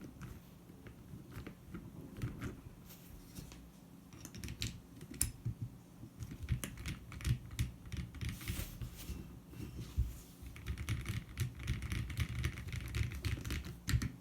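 Typing on a custom 60% mechanical keyboard: a Baldr60 glass case with an o-ring-mounted aluminium plate, Cow switches and GMK keycaps. Keystrokes come sparsely at first, then fast and continuous from about four seconds in.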